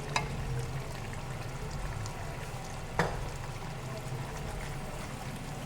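Boiled turnip pieces being tipped from a pan into a pot of cooked chicken, with a wet pouring, splashing sound over the pot's steady cooking noise. A single sharp knock of metal on the pot comes about three seconds in.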